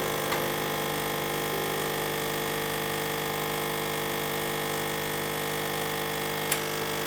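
Electric coffee-making appliance's motor running steadily with a dense mechanical hum. There is a small click just after it starts and a sharp click about six and a half seconds in.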